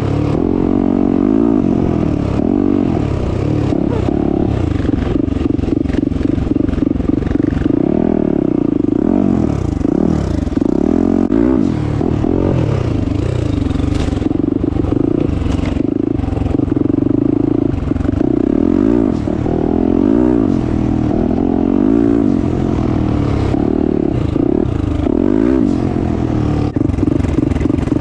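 Turbocharged 2021 Yamaha YZ450F single-cylinder four-stroke engine under way on a dirt trail, the revs rising and falling again and again as the rider throttles on and off, with frequent clatter from the rough ground.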